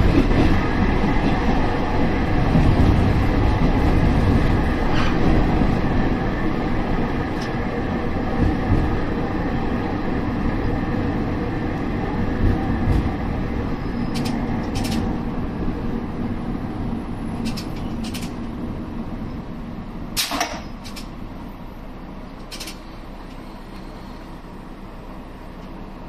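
KiHa 32 diesel railcar heard from inside the cab, its running and wheel rumble dying away as it slows to a stop at a station platform. A few sharp clicks come in the second half as it draws to a halt.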